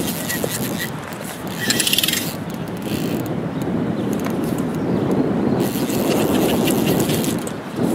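Fly reel's click-and-pawl drag ratcheting continuously as a hooked brown trout runs and pulls line off the reel.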